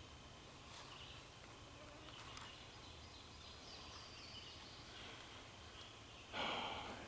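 Quiet forest ambience with faint high bird calls, and a short rustling noise near the end.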